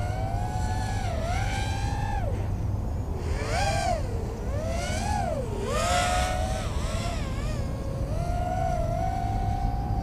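Motors and propellers of a Cicada 180 4-inch racing quadcopter in flight, a whine whose pitch rises and falls smoothly as the throttle changes, with several close tones from the separate motors. A steady low rumble runs underneath.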